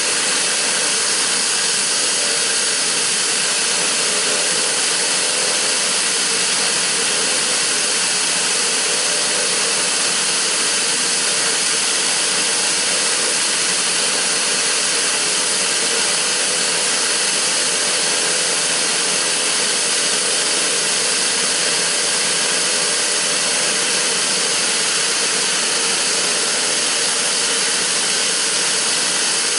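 Pilatus PC-12/47E's Pratt & Whitney PT6A turboprop engine running steadily: a constant turbine whine and hiss that does not change in pitch or level.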